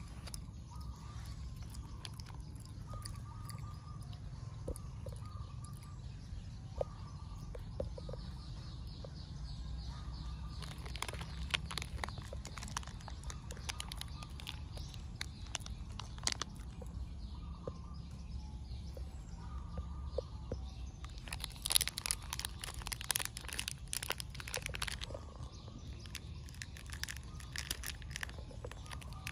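Short chirping animal calls repeated every second or two, over a steady low rumble, with bursts of clicking and rustling in the second half.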